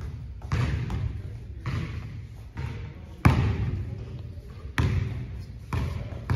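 Basketball bouncing on a hard court, about six irregularly spaced bounces with some echo, the loudest about three seconds in.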